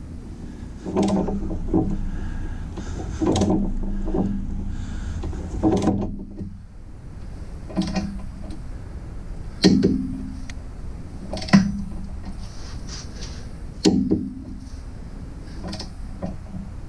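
Torque wrench being pulled on a Jeep TJ sway bar fastener: ratchet strokes and sharp metallic clicks, first in bunches, then single clicks about two seconds apart. The bolt is being brought up to torque after it was found well under spec.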